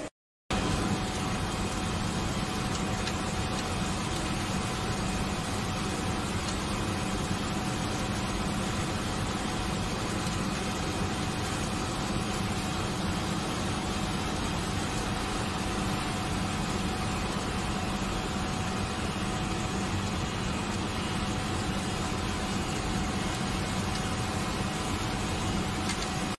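TG-CC-200 kitchen waste composting machine running, its motor turning the mixing shaft through the compost. It starts about half a second in and gives a loud, steady mechanical hum with a constant whine over it.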